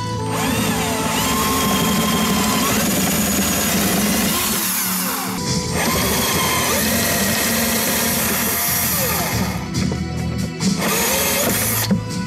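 Cordless drill boring out the heads of the rivets in a motorcycle top case, running in three long bursts with short breaks between them. Background music plays underneath.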